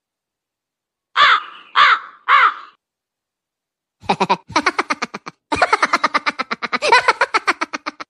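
Three short, harsh calls, each rising and falling in pitch, a little over half a second apart. After a pause comes a rapid run of pulsed calls, about seven a second, lasting about four seconds.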